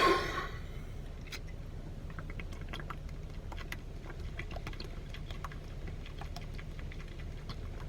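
A person chugging carbonated soda from a bottle: faint, irregular gulps and small swallowing clicks over a steady low hum.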